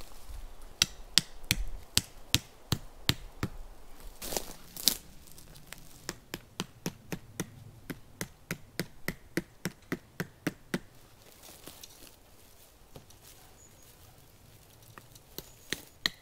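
Tarp stakes being hammered into the ground: runs of sharp knocks, about three a second, with a pause of several seconds before the knocking starts again near the end.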